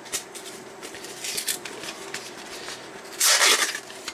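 Paper packaging being torn off a clear plastic box: scattered rustling and scraping, with one loud rip about three seconds in.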